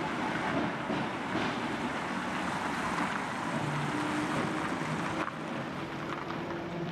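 Vintage tram running along the track: a steady rolling rumble with a low motor hum that comes and goes, and faint clicks from the wheels and rails. The level dips briefly about five seconds in.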